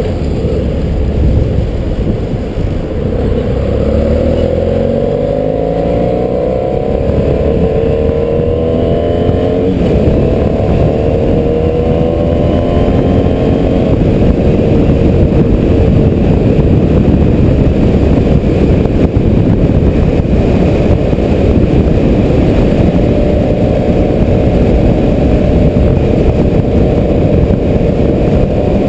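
BMW F800GS's parallel-twin engine pulling away and accelerating through the gears, its pitch climbing in each gear with a break for a shift about halfway through the climb. After that it runs steadily at cruising speed under a heavy rush of road and wind noise.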